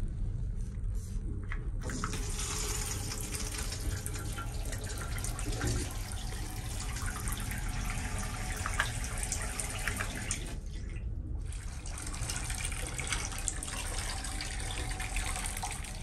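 Water running from a tap into a sink, turned on about two seconds in, shut off briefly around ten seconds in, then running again until near the end, over the ship's steady low engine drone.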